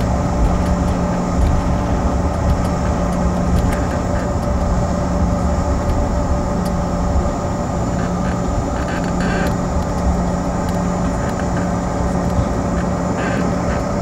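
Jet airliner's engines at takeoff power heard from inside the cabin: a loud, steady drone with a constant hum, over a low, uneven rumble.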